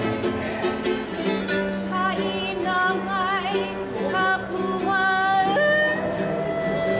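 A woman singing with wide vibrato over a strummed E.L. Woodworks traditional tenor ukulele. The voice comes in about two seconds in and rises to a long held note near the end.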